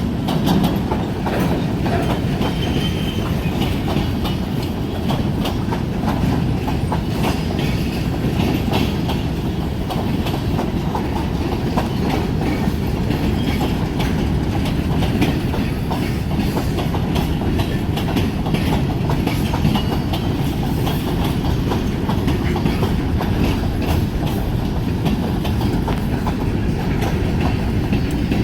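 Freight train rolling past, its wheels clicking steadily and continuously over the rail joints.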